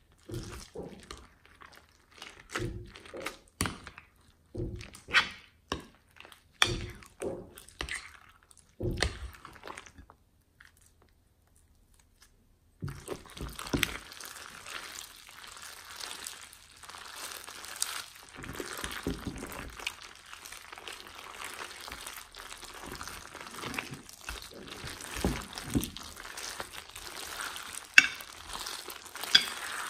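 Clear glossy slime packed with foam beads being worked by hand in a glass bowl: separate wet squelches and pops about once a second for the first ten seconds, a short gap, then continuous crackling and crunching of the foam beads as the slime is squeezed and kneaded.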